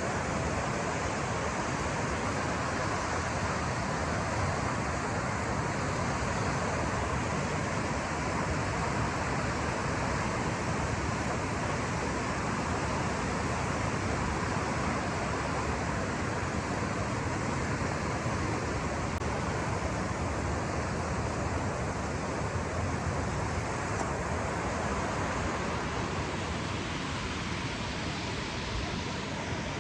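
Steady rushing of running water from a stream, an even noise that eases slightly near the end.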